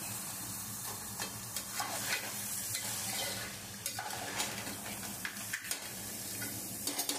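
Crab pieces and ground masala paste frying in oil in a steel pot with a steady sizzle, while a spoon stirs them and scrapes and knocks against the pot now and then.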